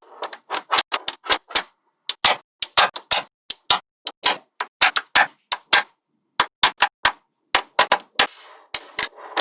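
Small magnetic balls clicking together one after another in quick, irregular sharp snaps, with a brief rattle of balls shortly before the end.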